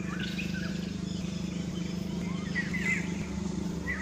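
A steady low mechanical hum runs throughout, with a few short, high chirping calls gliding up and down over it, the loudest about three seconds in.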